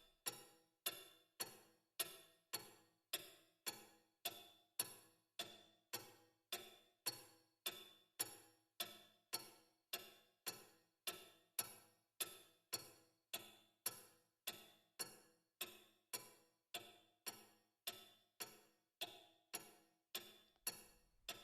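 Faint, steady ticking at about two ticks a second, each tick with a short ringing tone, like a clock ticking.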